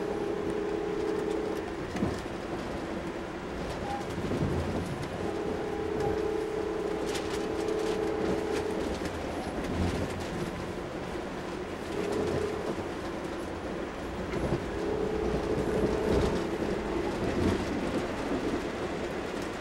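Locomotive horn heard from inside a passenger coach, sounding long, long, short, long: the standard warning for a grade crossing. Underneath is the steady running noise of the train on the rails.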